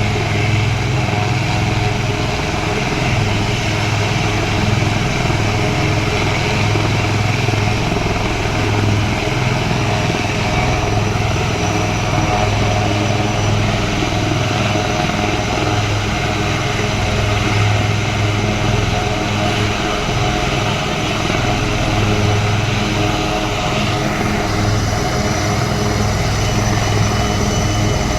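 Indian Army helicopter running close by, loud and steady, with the even low pulsing of its rotor blades over the whine of its engine.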